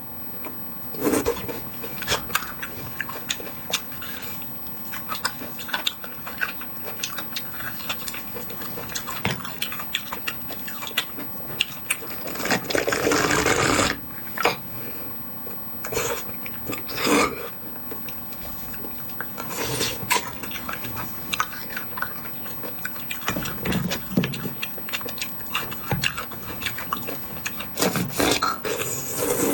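Close-miked eating of bone marrow: many short wet clicks and smacks of chewing and sucking, with a longer noisy sucking stretch of about a second and a half near the middle.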